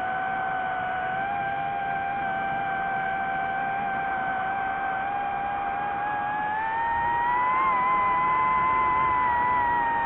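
DJI FPV drone's motors and propellers whining steadily in fast forward flight. About two-thirds of the way through, the whine rises in pitch and gets louder as the motors spin up, then eases slightly near the end.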